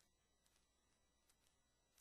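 Near silence: a faint hiss, with a few very faint clicks.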